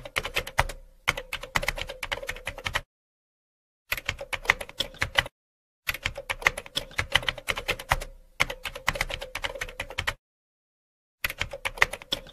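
Keyboard typing sound effect: rapid clicking keystrokes in four runs of one to four seconds, each cut off by a short dead silence, with a faint steady hum under the clicks.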